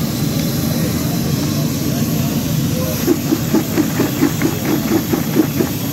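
Freshly fried chips being shaken in a plastic bucket. From about halfway in comes a rhythmic run of around eleven shakes, about four a second, over a steady low rumble and hiss.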